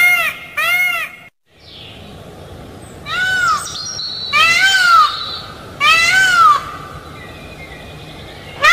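Peafowl calling: a series of loud, arching honks, each rising and falling in pitch, repeated about every second and a half. The calls break off briefly a little over a second in.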